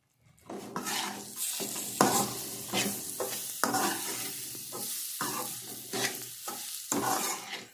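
Spoon stirring and scraping roasted semolina and dry fruits as they fry in ghee in a kadai, with a steady sizzle under irregular scraping strokes. The strokes stop near the end.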